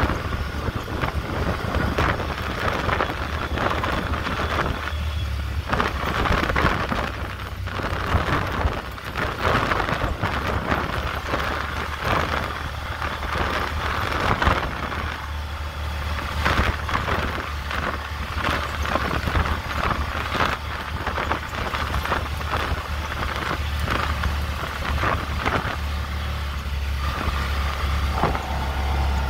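Off-road vehicle driving slowly over a rough dirt two-track: a steady low engine drone under a rushing noise from wind and tyres, with frequent small knocks and rattles as it goes over bumps.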